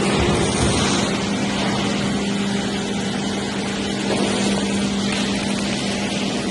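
Four-roll CNC plate rolling machine running with a steady mechanical hum and a constant low tone.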